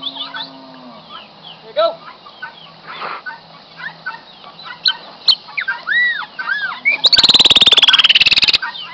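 Chopi blackbird (pássaro-preto) singing: a string of clear whistled notes that rise and fall, mixed with chirps. About seven seconds in comes a loud, rapid rattle falling in pitch that lasts about a second and a half.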